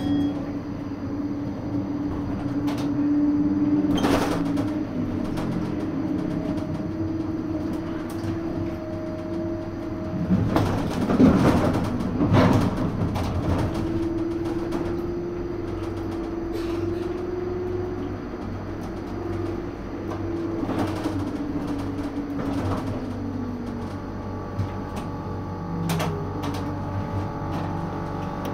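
Electric tram running along its rails: a steady traction-motor whine that glides down in pitch a little past the middle as the tram slows, with wheels clicking over rail joints and a louder stretch of rattling clatter around the middle.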